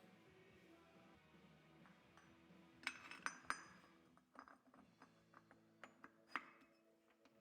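Light metallic clinks of small engine parts being handled and fitted during clutch assembly: a cluster of sharper clinks about three seconds in, then scattered single ones, one louder near the end.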